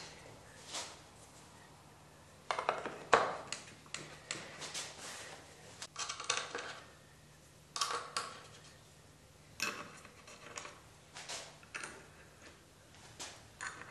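Small metal hinges and screws being handled and set by hand on a wooden tabletop: irregular light clinks, taps and short scrapes, the loudest about three seconds in.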